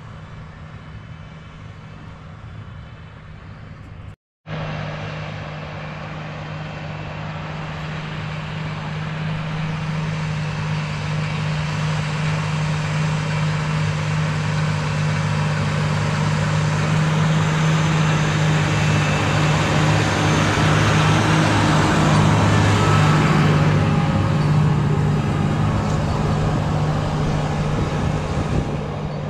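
John Deere 8360R tractor's diesel engine running steadily under load while pulling a six-bottom rollover plow, growing louder as it comes closer. The sound cuts out for a moment about four seconds in, then comes back louder.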